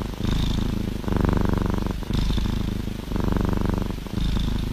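Tabby kitten purring close to the microphone while being stroked on the head. The purr swells and eases with its breaths about once a second.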